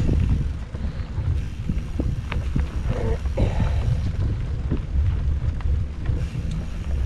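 Wind buffeting the microphone of a camera on a moving mountain bike, a steady low rumble, with scattered clicks and rattles from the bike and its tyres on the dirt trail.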